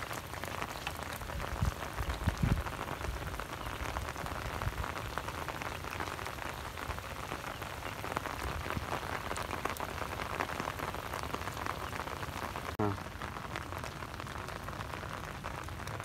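Steady rain falling on flooded paddy water and mud: a dense, even hiss of fine drop ticks, with a couple of dull thumps about two seconds in.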